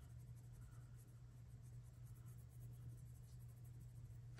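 Colored pencil scratching faintly across textured Fabriano Artistico watercolor paper in a rapid run of shading strokes, over a steady low hum.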